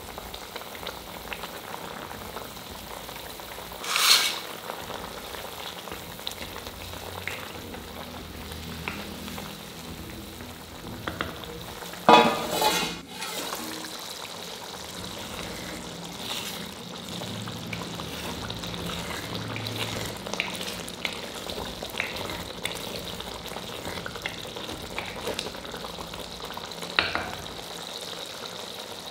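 Tomato masala for sev tamatar sizzling steadily in a pan, with scattered scrapes and clinks of a utensil against the pan. The loudest clatter comes about twelve seconds in.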